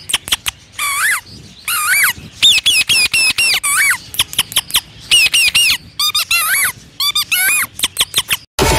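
A man mimicking parrot calls with his voice: quick runs of short, high, squeaky screeches broken by a few longer rising calls.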